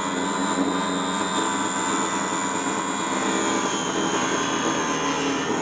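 Small table saw running with a steady whine as its blade cuts a strip of ABS plastic, which is softening and melting from the heat of the cut.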